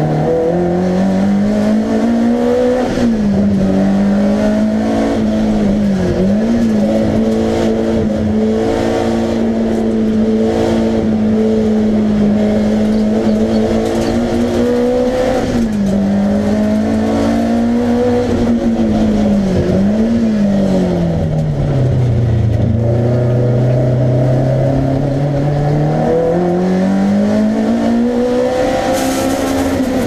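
Alfa Romeo Giulia GTAm race car's engine running hard under load, heard from inside the cabin. Its pitch holds high with a few brief dips, drops to low revs for a few seconds about two-thirds through, then climbs again before falling near the end.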